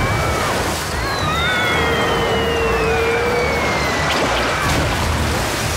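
Cartoon sound effect of a great rush of gushing water, steady throughout, with a long falling whistle and high squeaky cries over it.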